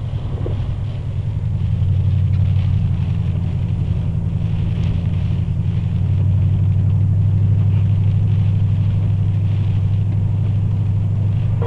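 Car driving, a steady low engine and road rumble that grows somewhat louder about two seconds in and again around six seconds.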